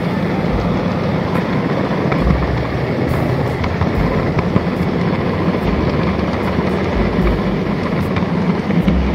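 N-gauge model C57 steam locomotive and train rolling along the layout track, heard up close from a camera riding on the train: a steady rumbling hum with irregular low bumps and faint clicks from the wheels on the rails.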